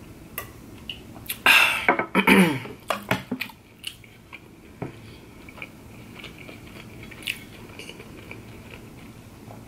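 Close-miked chewing and mouth noises of a person eating breaded chicken nuggets, with two louder short mouth sounds about one and a half and two and a quarter seconds in, then softer scattered clicks of chewing.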